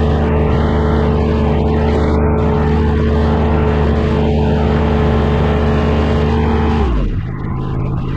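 Engine of compact land-clearing machinery running steadily at high revs, then winding down in pitch about seven seconds in as the throttle drops.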